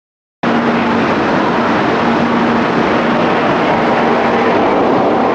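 300 series Shinkansen train pulling into the platform: a loud, steady rush of running noise with a steady hum underneath. It cuts in suddenly about half a second in.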